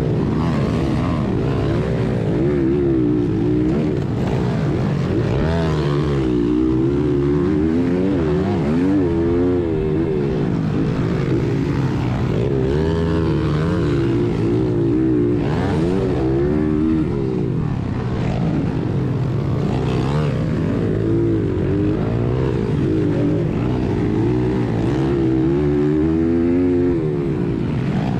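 1996 Honda XR100R's air-cooled four-stroke single-cylinder engine, ridden hard: it revs up and drops back again and again as the rider accelerates out of corners and over jumps.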